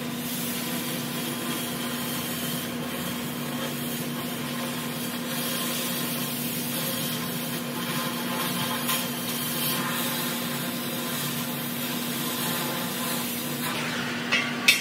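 Oxy-fuel cutting torch hissing steadily as it burns a hole through a rusty steel box tube. Two sharp knocks come near the end.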